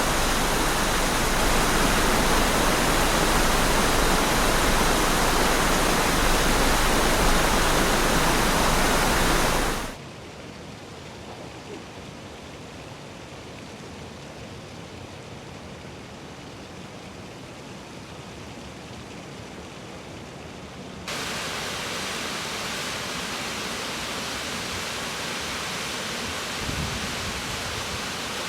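Waterfalls rushing, three falls in turn: a loud, full rush for about ten seconds, then a sudden cut to a much quieter, softer rush, and about eleven seconds later a cut to a moderately loud rush.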